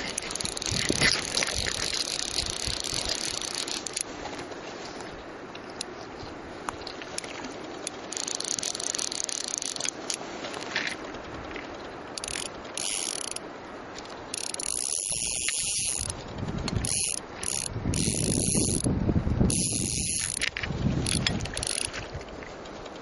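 Fly reel's click-and-pawl drag ratcheting in repeated bursts as a hooked trout pulls line off the reel. A low rumbling noise runs under the later bursts.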